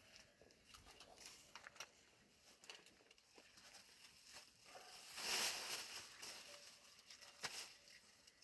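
Faint scattered clicks and rustling from handling work, with a short hiss about five seconds in and a sharp click near the end.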